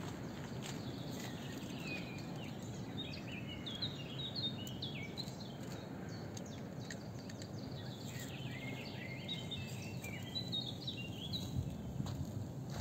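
Songbirds singing quick, repeated chirping phrases in two spells, over a steady low rumble from a freight train of tank wagons moving away.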